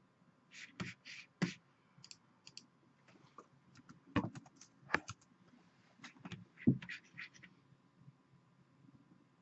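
Irregular clicking and tapping of computer keys and a mouse, with a few sharper knocks, the loudest near the end, then it stops.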